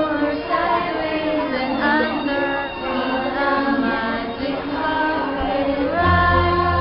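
Fireworks show soundtrack: orchestral music with a choir of female and children's voices singing. A deep bass note comes in near the end.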